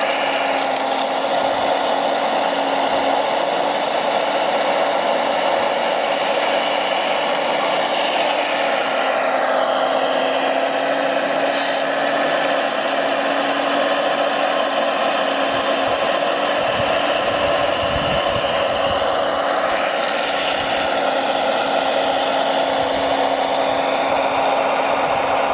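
Radio-controlled model construction vehicles running, a steady mechanical whir and rattle of small motors and gearing with a whine that rises and falls twice, and a few light clicks.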